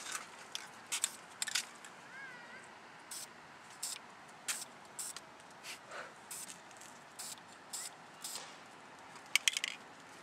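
Aerosol spray paint can hissing in short, irregular bursts as lines are sprayed onto a car's body panel, with a quick cluster of clicks near the end.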